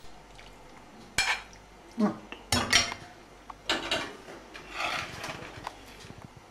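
Metal ladle and spoon clinking and scraping against ceramic bowls and a plate while sauced fusilli is dished up: about five short clatters, the loudest a little before the middle.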